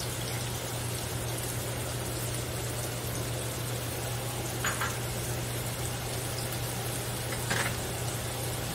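Minced onion and garlic sizzling in butter in a stainless steel pan: a steady sizzle over a low steady hum, with two brief light clinks about five and seven and a half seconds in.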